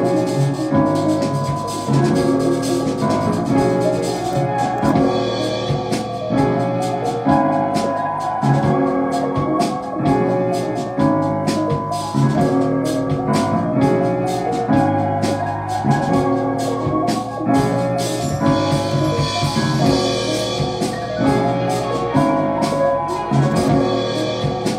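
A trap beat in progress playing back from music production software: a pitched keyboard-style melody over a low bass and drums, with rapid hi-hat ticks throughout.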